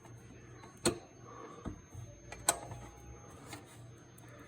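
Quiet handling of a wrench at the truck's belt tensioner, with two sharp metallic clicks about a second and a half apart and a few fainter taps.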